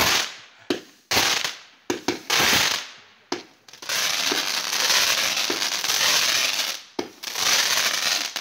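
Fireworks going off close by: several sharp bangs, each trailing off into a hiss, then a long, loud hissing spray from about four seconds in, cut by another sharp crack near the end.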